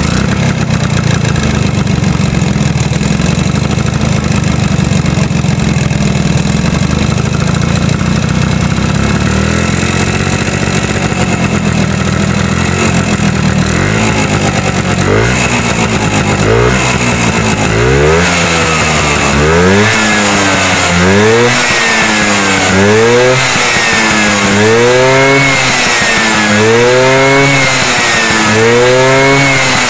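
Tuned two-stroke Vespa engine with a debaffled stock exhaust, idling steadily, then from about halfway blipped again and again, revving up and dropping back about every second and a half.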